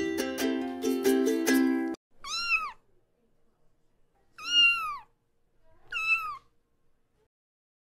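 A cat meowing three times, each meow rising and then falling in pitch. Before the meows, plucked-string background music plays and stops abruptly about two seconds in.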